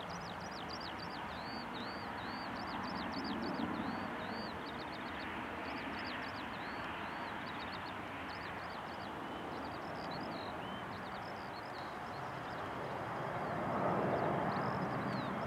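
Steady rushing jet noise of an Embraer 195's two GE CF34-10E turbofans as the airliner climbs out after takeoff, swelling louder near the end. Over it, a small bird chirps over and over in short, high, falling notes.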